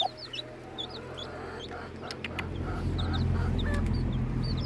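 Chicks peeping in rapid, short, high cheeps, with a hen clucking softly. A low rumble swells up about two and a half seconds in.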